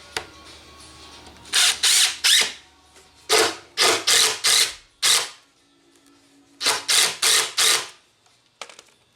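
Impact drill driving screws in short trigger bursts, three runs of rapid hammering pulses with brief pauses between them.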